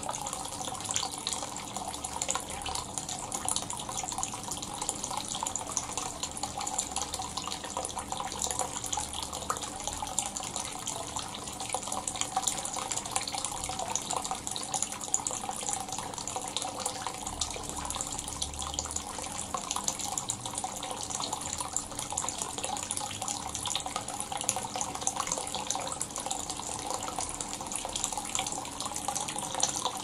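Hot-spring water pouring from a spout into a wooden outdoor bath tub, a steady, unbroken splashing.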